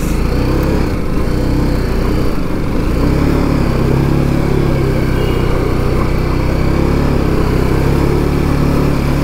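TVS Apache RR 310's single-cylinder engine running at a steady, low-gear throttle as the motorcycle wades through flood water, its note dipping briefly about two seconds in.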